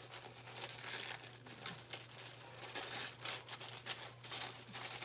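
Tissue paper packaging crinkling and rustling in quick, irregular crackles as the subscription box is unpacked by hand.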